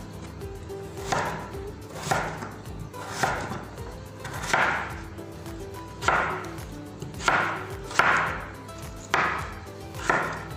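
Chef's knife slicing a raw potato into strips on a wooden cutting board: a cut about once a second, each ending with the blade striking the board. Faint background music underneath.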